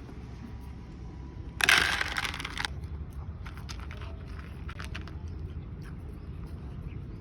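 A loud crinkling rustle lasting about a second, then scattered lighter crackles and clicks.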